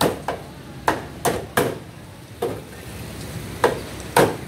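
Meat cleaver chopping a plucked chicken on a round wooden chopping block: a quick run of about nine sharp, uneven strikes, some coming in close pairs.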